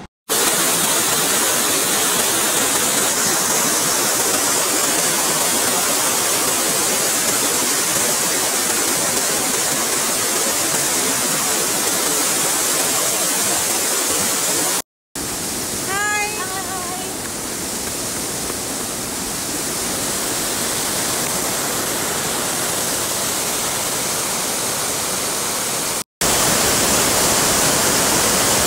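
Water rushing down a steep stepped concrete channel, a loud, steady roar broken by two short dropouts. A brief vocal sound rises over it about sixteen seconds in.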